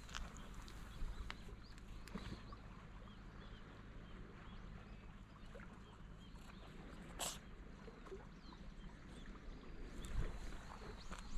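Quiet seaside outdoor ambience: a low steady rumble with faint scattered high chirps, and one short sharp sound about seven seconds in.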